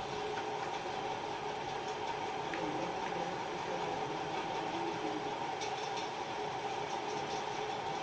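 Steady background hum with a faint constant whine over a light hiss, unchanging throughout, with no distinct clicks or beeps.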